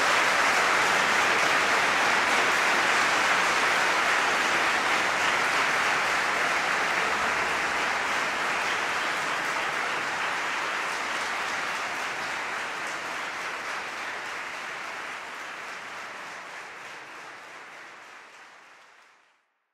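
Concert audience applauding after a choir piece, a dense, even clapping that holds steady for a while, then slowly fades out and dies away just before the end.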